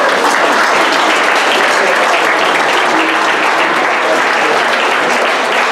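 A roomful of seated guests applauding: a steady, sustained round of clapping that holds at an even level throughout.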